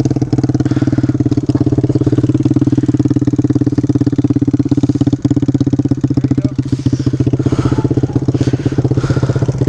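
Small single-cylinder dirt bike engine idling steadily, with a fast even putter. A few light knocks and scrapes in the second half.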